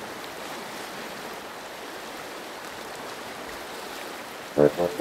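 River water flowing steadily with an even rush. Near the end, music with quick, loud repeated notes cuts in abruptly.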